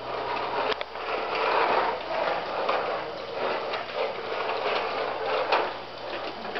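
A plastic toy truck's wheels rolling across a wooden floor as it is pushed along, a rough rolling noise that swells and fades with the pushes, with a few sharp clicks.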